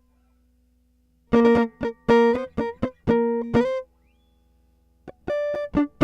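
Clean electric guitar recorded direct through a DI box, with no amp or effects, playing short, choppy rhythm chords. It is silent for about the first second, then a run of clipped chord strikes, a pause, and the chords start again near the end.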